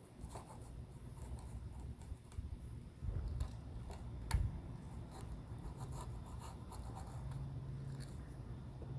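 Scratching, rubbing and small clicks of hands working screen mesh and rubber spline into an aluminium frame channel, with one sharper click a little over four seconds in.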